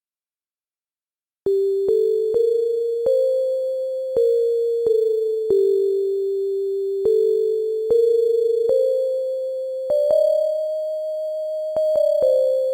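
Simple homemade electronic music: a plain sine-like tone plays a slow melody of held notes that step up and down a few pitches, each note starting with a click. It comes in about a second and a half in.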